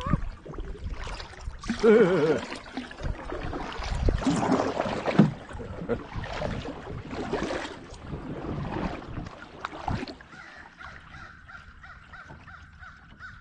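Kayak paddle dipping and splashing in the water, a stroke about every second, dying away after about ten seconds. A faint steady high tone carries on near the end.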